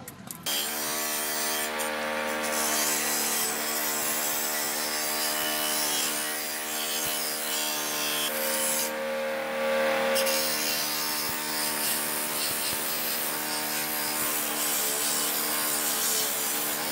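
Wire wheel brush on a bench grinder running, scrubbing rust and old paint off a steel bicycle mudguard: a steady motor whine under a continuous harsh scraping hiss. It starts abruptly about half a second in.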